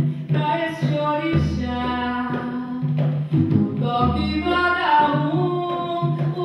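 Live Afro-Brazilian afoxé music: singing over hand drums and percussion, with a deep low note that returns every two to three seconds.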